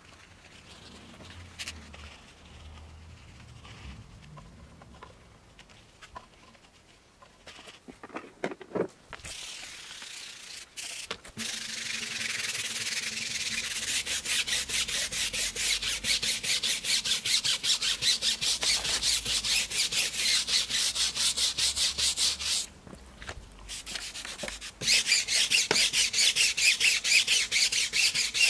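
A detailing brush scrubbing wet, foamed iron fallout remover over the face of an alloy wheel, agitating it to lift brake dust. It is a run of quick, rhythmic hissing strokes that starts faint, becomes steady after about ten seconds, pauses briefly near the end and picks up louder.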